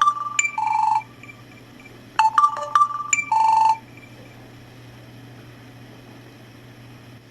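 Samsung Galaxy S phone's loudspeaker playing its speaker-test jingle from the *#0*# service test menu: a short ringtone-like run of beeping notes that ends on a held lower note. The end of one phrase is followed by a full repeat about two seconds in.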